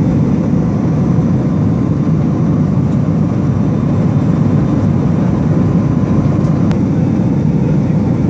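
Steady drone of an aircraft's engines heard inside the cabin of a surveillance plane in flight.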